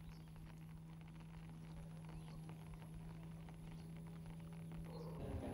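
Motor boat engine running with a steady low hum, with small splashing and clicking water noises. Near the end the engine comes in louder.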